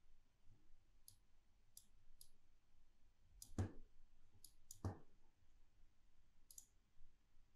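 Faint, scattered clicks of a computer mouse being operated, with two louder clicks about three and a half and five seconds in, over near-silent room tone.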